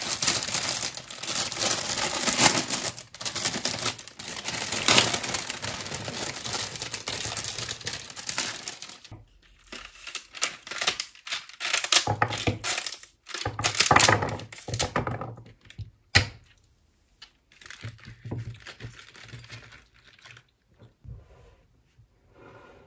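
Clear plastic flower sleeve crinkling and tearing as a bunch of tulips is unwrapped, dense for the first nine seconds or so. Then come scissors cutting through the tulip stems and stop-start handling sounds, with a single sharp click about sixteen seconds in.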